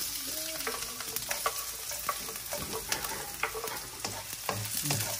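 Chopped garlic and ginger sizzling in hot oil in a nonstick wok, with a wooden spatula scraping and clicking against the pan as it stirs.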